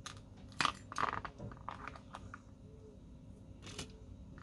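Light irregular clicks and taps of small metal and plastic parts being handled: an opened-up diecast toy car's body and plastic interior piece knocking together, loudest about a second in.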